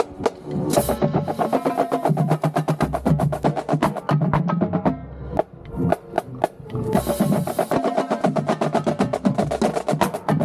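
Marching band drumline playing a fast cadence: rapid snare and tenor drum strokes over bass drums, with cymbal crashes about a second in and again around seven seconds.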